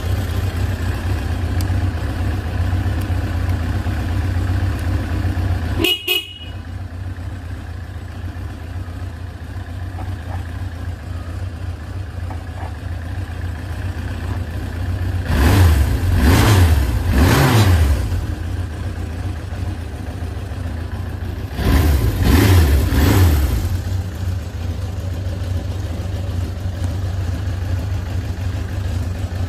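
Suzuki GSX750S3 Katana's air-cooled inline-four engine idling. About six seconds in there is a click and the engine note drops quieter. Two bursts of revving follow, each a couple of seconds long with the pitch rising and falling, about fifteen and twenty-two seconds in, before the engine settles back to idle.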